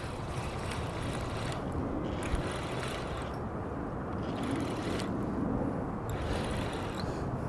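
Steady wind rumble on the microphone, with a hiss that comes and goes and a single faint click a little over two seconds in.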